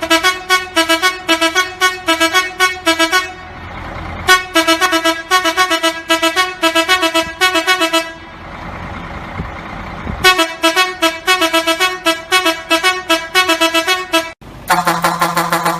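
Vehicle horn sounding rapid runs of short, loud toots, about four or five a second, broken by two pauses filled with low engine and road noise. About fourteen seconds in, it cuts abruptly to a different, lower-pitched horn.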